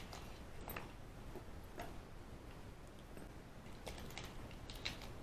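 Faint, irregular small clicks and taps of a TSA travel padlock and dimple-lock picks being handled, a handful of separate clicks with a few close together near the end.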